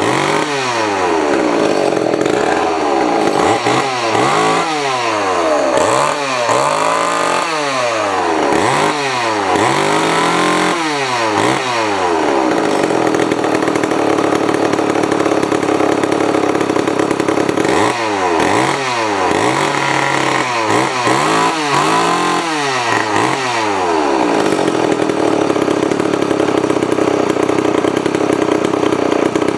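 Freshly reassembled vintage Montgomery Ward Featherweight two-stroke chainsaw running, its throttle blipped over and over so the engine revs up and drops back roughly once a second. Between the bursts of revving, and again near the end, it runs steadily.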